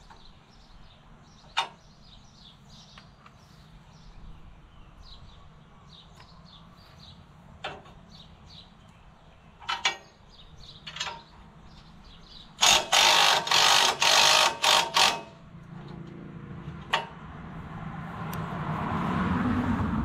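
Hand-tool work on the rusty nuts of a tractor-mounted tine cultivator: scattered metal clinks, then a loud burst of rapid metallic rattling lasting about two and a half seconds past the middle. Near the end, footsteps rustling through grass grow louder.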